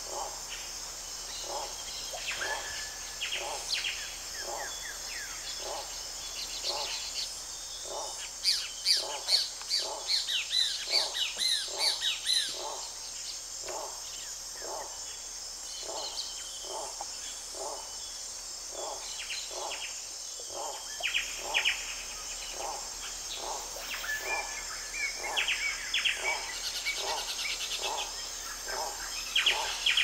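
Rainforest ambience: a steady high insect chorus, a low call repeating about every two-thirds of a second, and birds chirping over it, with a flurry of quick chirps about a third of the way in and more near the end.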